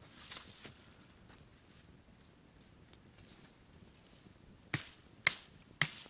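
Dry branches snapping by hand: three sharp cracks about half a second apart near the end, after a brief brushing swish near the start.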